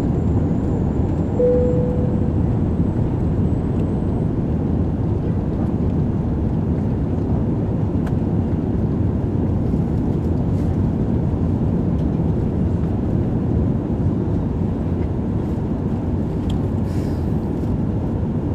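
Steady low roar of jet engines and rushing air inside the cabin of an Airbus A380 under way in its takeoff. A brief single tone sounds about a second and a half in, and a few faint clicks come near the end.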